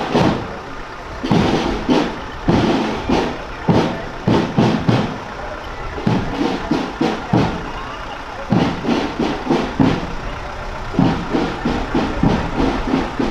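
Military jeep's engine idling as it creeps along at walking pace, under crowd voices and music, with repeated sharp hits every half second to a second.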